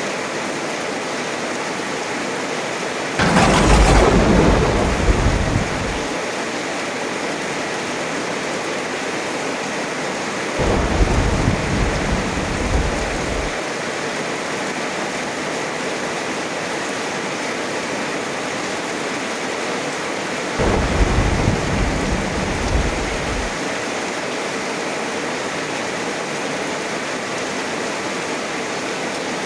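Heavy, steady rain with three peals of thunder: a loud sharp crack about three seconds in, then two lower, softer rumbles around eleven and twenty-one seconds.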